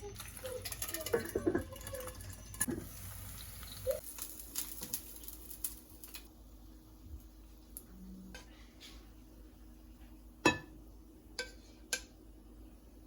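Dishes and utensils clinking and clattering, busiest in the first half, then a few separate sharp knocks in the last few seconds, the first of them the loudest.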